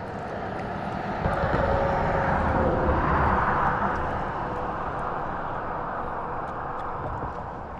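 An engine passing by, growing louder to a peak about three seconds in and then slowly fading.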